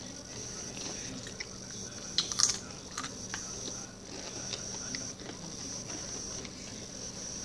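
Doritos tortilla chips crunching as they are bitten and chewed, with a cluster of sharper crunches about two seconds in and another at three. A faint steady high whine runs underneath.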